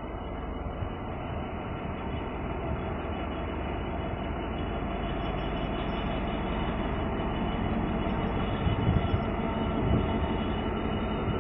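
GBRf Class 66 diesel-electric locomotive 66707 passing slowly at close range. Its EMD two-stroke V12 diesel runs steadily, growing louder as it draws near, with a couple of thumps near the end.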